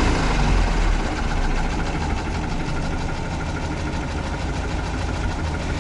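UAZ-469's four-cylinder petrol engine running with a knock from inside, at zero oil pressure: the owner suspects a spun crankshaft bearing shell.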